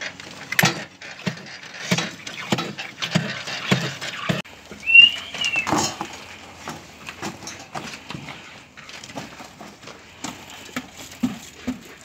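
Concrete being poured by hand from buckets into wooden wall formwork and worked in, with irregular knocks and scrapes. A brief high squeak rises and falls about five seconds in, and a run of low, even thuds, about three a second, comes near the end.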